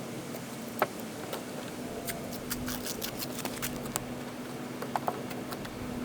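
Masking tape being pulled off the roll, torn and pressed onto the trim around a car headlight: scattered small clicks and crackles, busiest in the middle, with a faint steady hum underneath.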